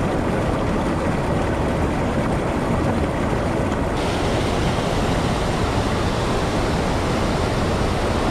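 Mountain stream rushing over rocks and small falls, a steady, loud rush of water that turns a little brighter and hissier about four seconds in.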